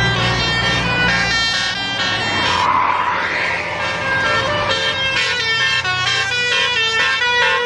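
Indonesian bus 'telolet' multi-tone air horn playing a quick melody of stepping notes. A diesel bus engine rumbles under it and drops away about a second and a half in, and there is a short hiss around three seconds in.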